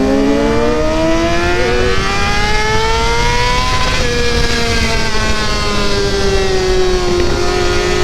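A 600cc sport bike's engine pulling hard from an onboard view. Its pitch climbs for about four seconds, then eases off and slowly falls, over steady wind and road noise.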